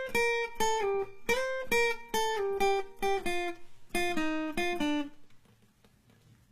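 Acoustic guitar playing a melody of single plucked notes in short phrases that step downward in pitch, then stopping about five seconds in.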